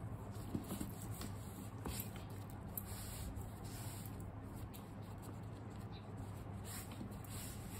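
Cloth rubbing mink oil into a pebble-leather bag strap: soft, irregular scratchy rubbing with a few faint taps, over a low steady hum.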